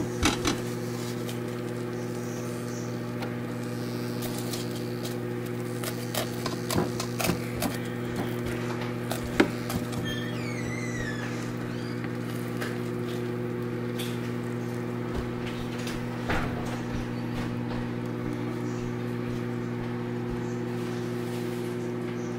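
A metal fork clicking and scraping against chicken wings and a perforated plastic air fryer basket, giving a few scattered sharp clicks, the loudest about nine seconds in. A steady low hum runs underneath throughout.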